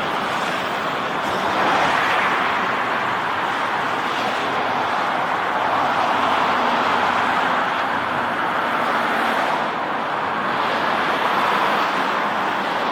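Lockheed Martin CC-130J-30 Hercules on final approach, its four Rolls-Royce AE 2100D3 turboprops heard from a distance as a steady drone with a faint propeller hum beneath.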